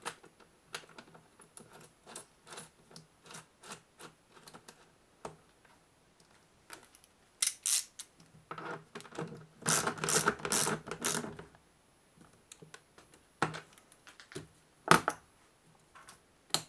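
Small metal parts handled at a battery terminal while a balancer lead's cable lug is fitted: a run of light clicks and taps, a denser rustling, rattling stretch about ten seconds in, and a sharper single knock near the end.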